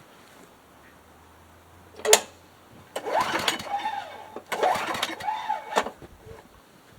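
Two pulls on a Craftsman mower's recoil starter rope, each lasting about a second and a half, the engine turning over without catching. A sharp click comes just before the first pull.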